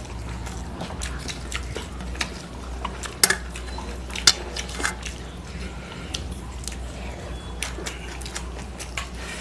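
Stainless-steel bowl and plates clinking as curry is tipped onto a plate, with two sharp clinks a second apart about three and four seconds in, among small clicks and wet sounds of eating rice with the fingers and chewing, over a steady low hum.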